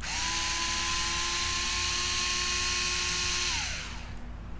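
Cordless electric screwdriver running at a steady speed for about three and a half seconds, backing a screw out during disassembly, then winding down in pitch as the trigger is released.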